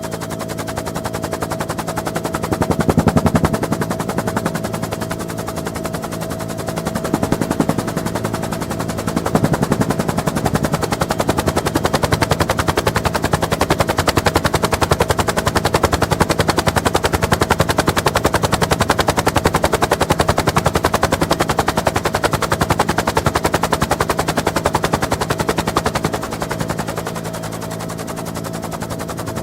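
Bell UH-1N Twin Huey helicopter heard from aboard: the rapid, regular chop of the rotor blades over the steady whine and drone of its twin turboshaft engines. The chop swells louder a few times early on, stays loud through most of the stretch, then eases off near the end.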